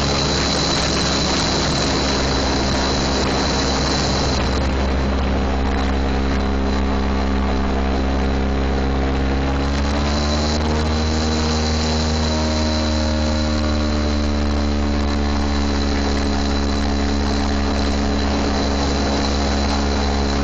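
Engine of a small off-road vehicle running steadily as it drives, its pitch climbing for a few seconds about halfway through and then holding higher.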